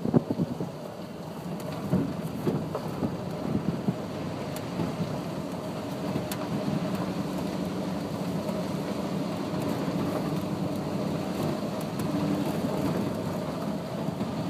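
Pickup truck driving along a forest road, heard from the open bed: a steady low engine hum and tyre noise with light crackling, free of wind buffeting.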